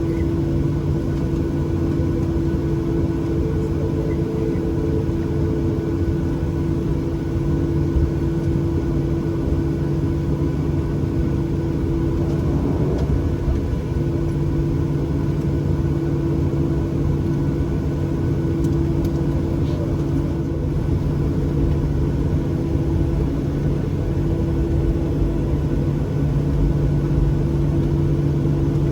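Boeing 737-800's CFM56-7B jet engines running at a steady, unchanging setting, heard inside the economy cabin as a low drone and rumble with a steady hum.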